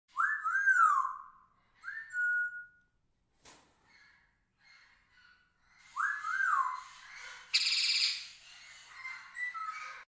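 Loud whistles: a swooping two-part whistle that rises and falls, heard twice about six seconds apart, and a short rising whistle held steady in between, with faint chirps. A brief burst of hiss comes about three-quarters of the way through.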